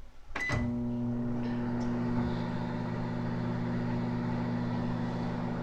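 Microwave oven started with a beep about half a second in, then running with a steady hum.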